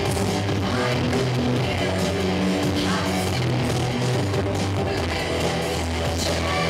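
Live rock music led by electric guitar, loud and continuous, with long held low notes underneath.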